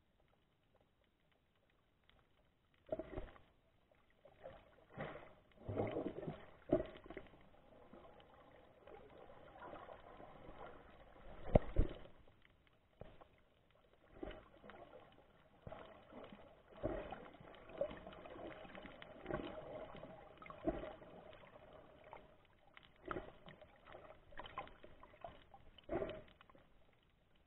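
Muffled, irregular knocks and bumps picked up by an action camera in its housing underwater, with water movement around it. A faint steady hum runs through the middle stretch, and the loudest knock comes about halfway through.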